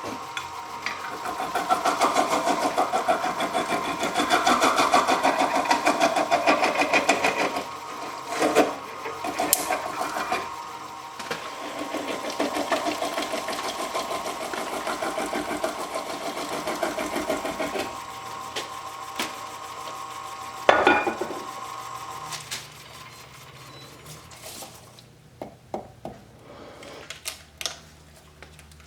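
Wood lathe spinning a pineapple while a turning tool cuts into it, a fast rattling chatter over the steady run of the machine. The cutting is loudest for the first half and eases off about two-thirds through. A lower steady hum and a few scattered knocks follow.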